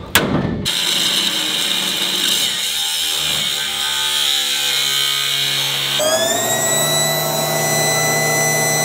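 A hammer blow on steel right at the start, then an angle grinder cutting through the steel spare-tire carrier bracket with a steady high rasp. About six seconds in the grinding gives way to a steady whine of several even tones.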